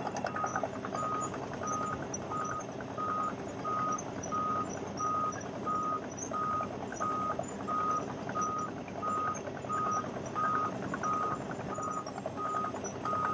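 A backup alarm beeping steadily, about three beeps every two seconds, over the continuous running rumble of a Wirtgen W 210Fi cold milling machine cutting asphalt.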